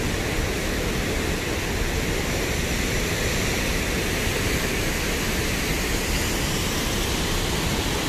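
Waterfall rushing steadily: an even, unbroken water noise.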